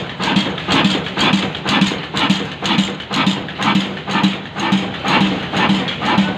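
Slow-speed horizontal 35 HP desi 'Kala' diesel engine, a large single-cylinder engine, running at about 275 RPM with a steady beat of about two firing strokes a second.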